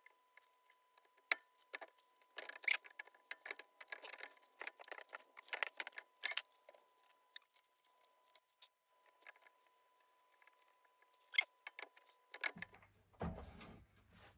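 Small metal parts clinking, tapping and scraping in irregular light clicks as a pulley and its key are worked onto a mower engine's crankshaft, with a faint steady tone underneath.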